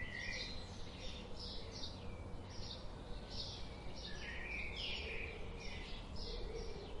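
Songbirds calling: a steady run of short high chirps, about two a second, with a lower, longer sweeping call near the start and again about four seconds in, over a low steady background hum.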